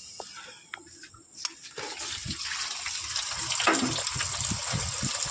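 Water rushing into a Voltas Beko washing machine through its inlet valve while the machine is switched off, swelling about two seconds in. This is the fault being shown: the inlet valve lets water pass without power.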